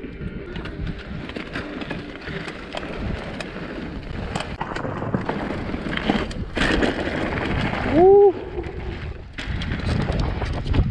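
Mountain bike rolling over loose rock and gravel: tyres crunching, with rattling clicks from the bike and wind buffeting the handlebar-mounted camera. A short rising tone cuts through about eight seconds in.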